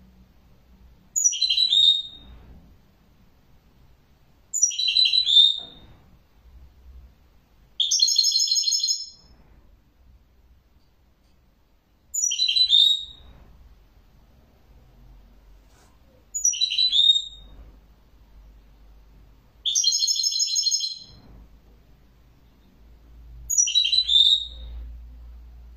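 Caged European goldfinch singing in short twittering phrases, one about every three to four seconds with pauses between, two of them buzzier than the rest.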